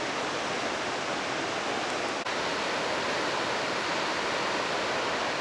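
The Rhine Falls: a steady rush of falling water, with a momentary break about two seconds in.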